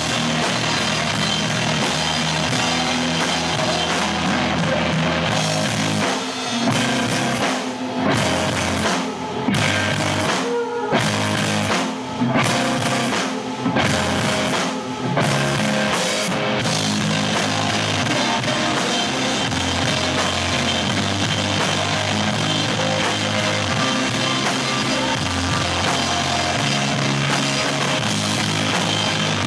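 Live rock band playing loud with electric guitar and drum kit. From about six seconds in to about sixteen, the band plays a run of short hits together with brief gaps between them, then goes back to full, continuous playing.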